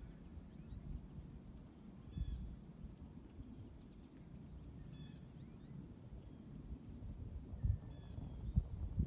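Crickets trilling steadily at a high pitch, with a few faint short chirps scattered through. A low rumble of wind on the microphone runs underneath and gusts harder near the end.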